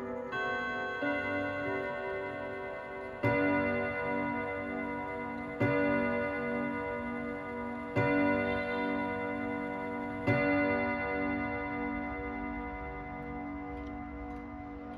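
Vedette ten-rod chiming wall clock, case door closed, sounding the full hour: the chime tune's last notes ring on, then four hour strikes about two and a half seconds apart, each gong ringing long and slowly fading.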